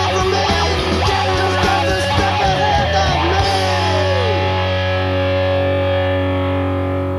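Punk rock demo recording with distorted electric guitar, bass and drums. About halfway through the drums stop and a distorted chord is left ringing, one note sliding down in pitch, the chord slowly fading as the song ends.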